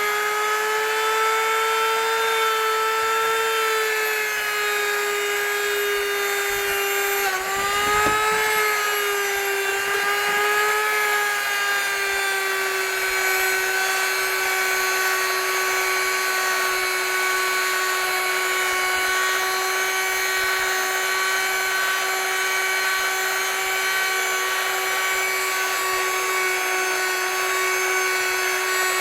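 Electric power tool running with a steady high whine. Its pitch dips briefly about seven seconds in as it is loaded, then settles slightly lower.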